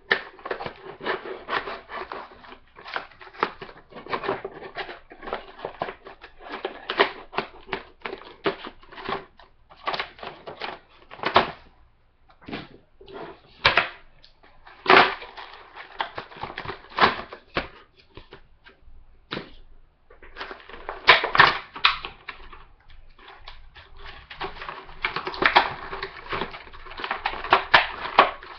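Cardboard box and packaging of an HDMI cable being worked open by hand: irregular rustling, crinkling and clicking, with two short lulls about halfway through and again later.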